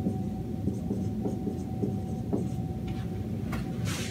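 Whiteboard marker rubbing across a whiteboard in short writing strokes, over a steady low room hum with a faint steady tone. A louder brief brushing sound comes near the end.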